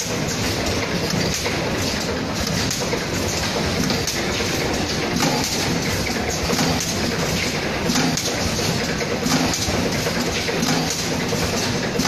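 Rotary pre-made bag packing machine running steadily as it fills facial-mask bags with lotion and seals them: a continuous mechanical clatter with faint irregular knocks.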